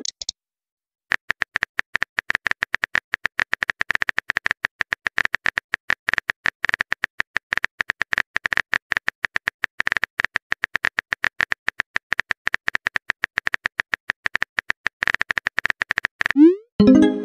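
Rapid keyboard tapping clicks of a texting app's typing sound effect as a message is typed out. They stop a second before the end, when a short rising pop-chime plays as the message is sent.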